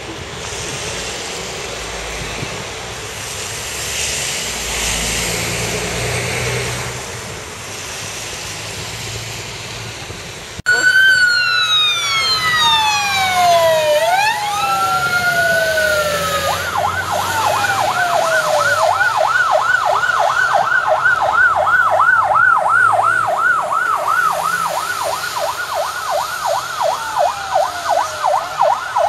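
Wind and street noise for the first ten seconds. Then a fire engine's siren starts abruptly: a few slow wails falling and rising in pitch, then about six seconds later a rapid yelp of about three sweeps a second.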